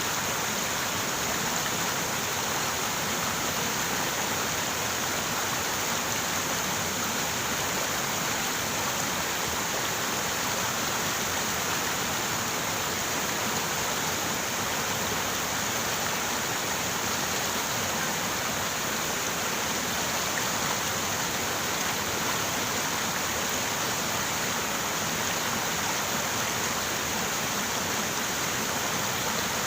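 River water running over rocks: a steady, even rush with no breaks.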